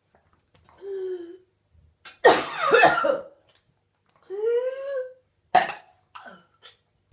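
A woman's whooping cough (pertussis) fit, in its fifth week. A loud burst of harsh coughing comes about two seconds in. Pitched, drawn-out breath sounds come before and after it, and a short sharp cough follows.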